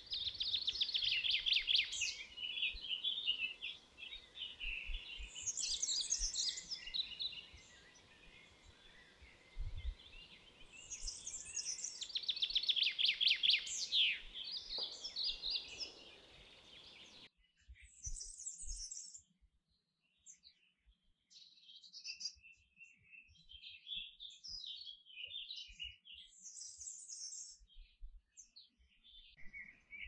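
Canary singing: warbled phrases with fast rolling trills, loudest near the start and again about twelve seconds in. Past the halfway point the song thins to softer, scattered chirps and short notes.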